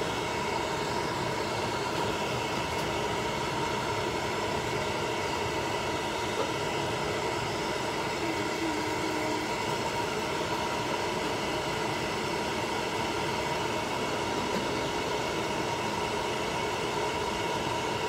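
Hair dryer running steadily, drying a wet chinchilla's fur: an even rush of air with a steady whine.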